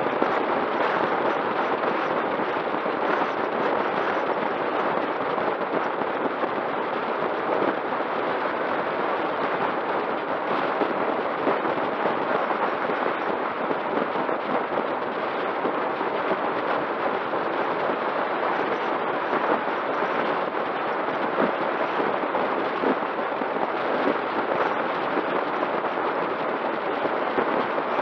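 Steady rush of wind and tyre noise from a road bicycle descending at speed, heard through a camera mounted on the bike, with a faint steady hum underneath.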